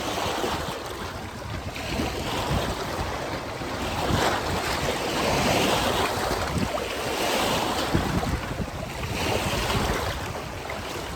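Wind gusting on the microphone, a rushing noise that swells and eases every couple of seconds over an irregular low rumble.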